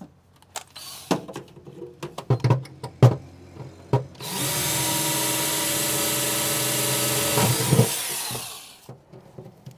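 Power drill boring a rivet hole. A few clicks and knocks of handling come first, then about four seconds in the drill runs steadily for about four and a half seconds before winding down.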